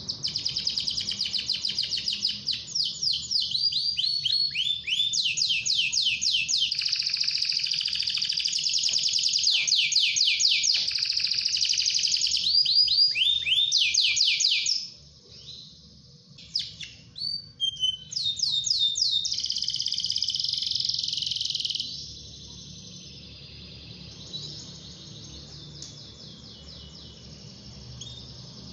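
Domestic canary singing fast rolling trills, rapid runs of repeated sweeping notes. The song breaks off about halfway with a few short phrases, bursts back for a few seconds, then continues much fainter for the last third.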